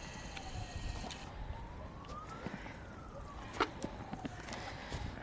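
A siren wailing, its single tone gliding slowly down and up again, about one fall and rise every three and a half seconds. A sharp click comes about three and a half seconds in.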